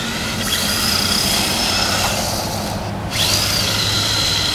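RC drift car's motor whining as it is driven, the pitch rising with throttle. The whine cuts off briefly about three seconds in as the throttle is let off, then rises and holds again.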